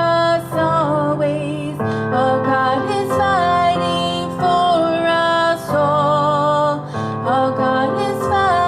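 Music: a slow, gentle worship song, with a held, wavering melody over instrumental chords that change about every second and a quarter.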